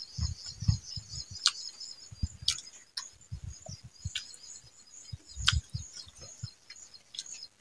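Close-miked chewing of a mouthful of rice and fried leafy greens: irregular soft low thuds with wet mouth clicks and smacks several times a second. A steady high chirring of insects runs behind it.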